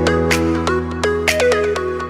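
Background music: quick plucked electronic notes, each with a short downward pitch slide, over a steady held bass.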